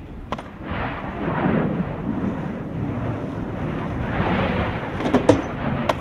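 Skateboard wheels rolling on rough concrete, a rumble that swells and fades, with sharp clacks of the board: a pop and a clack near the start as a kickflip is done, and a quick run of clacks about five seconds in.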